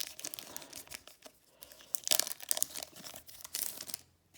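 Foil wrapper of a Pokémon booster pack crinkling and tearing in a quick run of crackles, busiest about two seconds in and dying away near the end.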